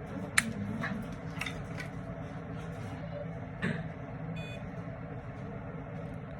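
Steady background hum with a few light clicks and a knock, and one short electronic beep about four and a half seconds in.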